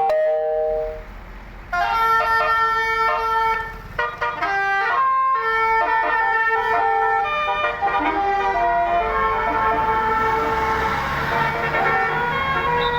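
Tour bus 'telolet' musical horn playing a melody: several horn tones sound together and step up and down in pitch. There is a short break about a second in, then the horn plays on almost without pause.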